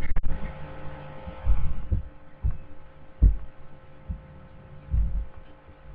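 About five low, muffled thumps at uneven intervals, the loudest about three seconds in, over a faint steady hum.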